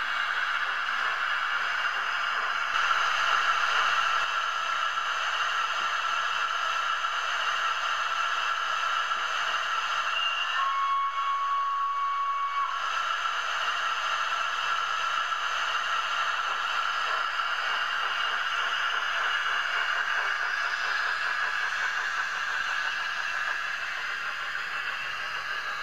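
Steady hissing running sound of a DCC sound-fitted OO gauge model locomotive. About ten seconds in, its sound decoder gives one signal tone lasting about two seconds, starting with a brief higher note.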